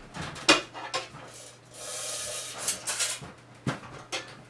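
Handling noises: several light knocks and clicks, with a brief rubbing rustle about two seconds in, over a faint steady hum.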